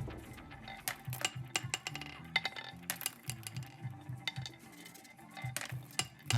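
Glass marbles clicking and clinking irregularly as they knock along a marble run, over quiet background music.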